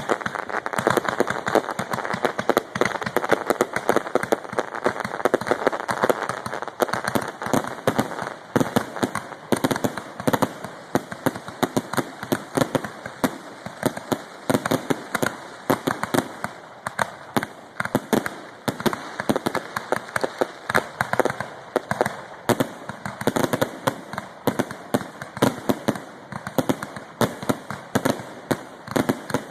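Fireworks finale: a dense, unbroken barrage of explosions, several bangs a second, with crackling between them.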